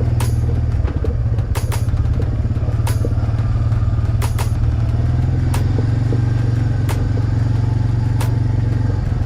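Suzuki 400 ATV engine running steadily under way, with sharp clacks and knocks every second or so from the quad jolting over rough, rocky ground.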